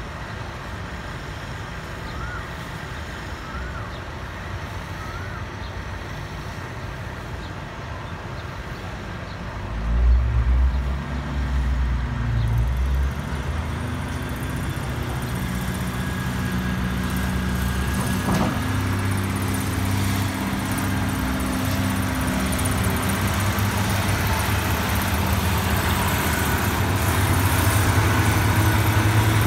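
Diesel railcar train's underfloor engines opening up about ten seconds in as the train pulls out of the station. A heavy low engine note begins and grows steadily louder as the cars move past.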